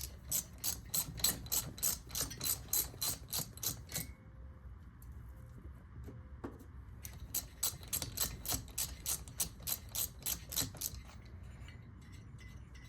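Ratchet wrench clicking in quick even strokes, about four a second, as the last cylinder-head fastener on a Fuji F500K two-stroke engine is backed off: two runs of clicking with a pause of a few seconds between them.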